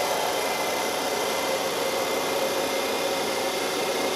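The electric motor-driven hydraulic pump of a CVRT Striker runs steadily, driving the ram that raises the ATGM launcher. It makes a constant whir with a steady tone.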